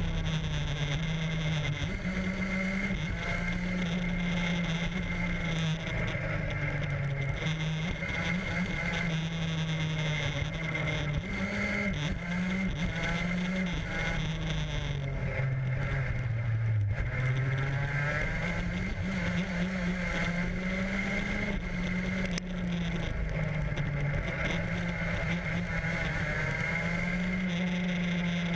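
Racing kart's small engine running hard around a circuit, its pitch climbing and falling again and again as it accelerates and slows, dipping lowest about two-thirds of the way through. Wind and road noise run steadily underneath.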